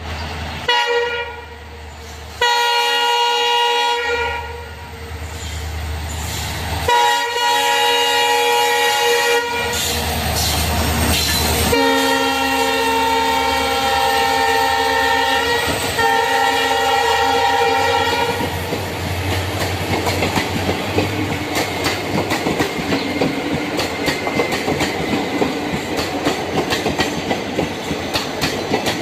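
Train horn sounding several blasts, the last held for about six seconds. The train then runs past with a steady rattle and the rhythmic clack of wheels over the rail joints.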